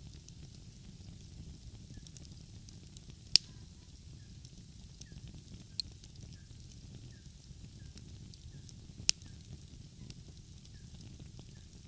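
Wood fire crackling with a steady low background noise, broken by sharp pops of burning wood, the loudest two about a third of the way in and near three quarters.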